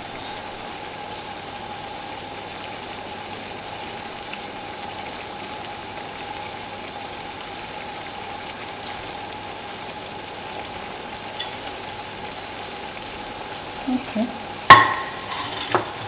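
Meatballs simmering in tomato sauce in a frying pan, a steady sizzling hiss. A few light clicks as more meatballs are set into the pan, then a sharp knock against the pan a little before the end, the loudest sound.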